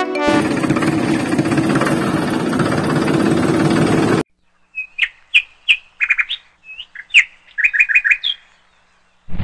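Small DC-motor water pump running steadily for about four seconds, then cutting off abruptly. After that a bird chirps in short, high calls, some in quick runs of three or four.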